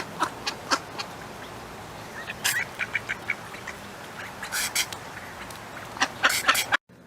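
An animal sneezing repeatedly: short, sharp nasal bursts, some single and some in quick runs of three or four.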